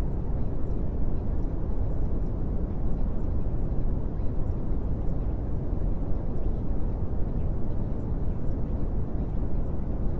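Steady low rumbling noise, strongest in the bass, with no changes or distinct events.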